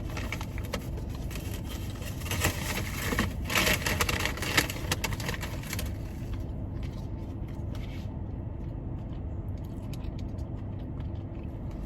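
Chewing and small crackles from eating a Korean cheese corn dog, busiest in the first half and thinning out after about six seconds, over a steady low hum of a car's air conditioning.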